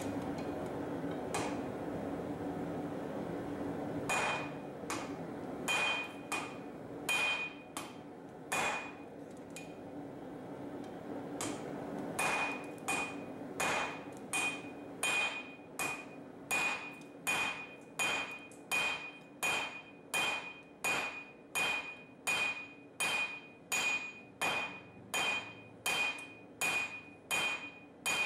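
Hand hammer striking a red-hot steel bar on a steel anvil, drawing the tab out. Each blow is followed by a bright ring from the anvil. A few scattered blows come first, then after a pause of about three seconds a steady run of about one and a half blows a second.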